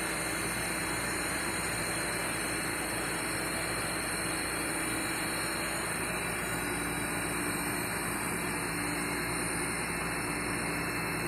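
Schutte 305 Linear CNC tool and cutter grinder running with its coolant spraying onto the wheel and workpiece, heard through the machine's closed enclosure: a steady hiss with a constant low hum.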